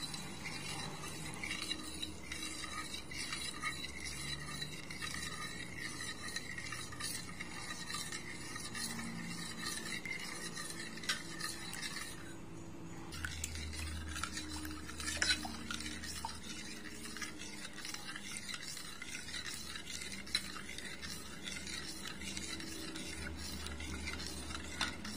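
A metal spoon stirring thick, cooked custard pudding in a pot, scraping the sides and bottom with small clicks. The stirring breaks off briefly about halfway through.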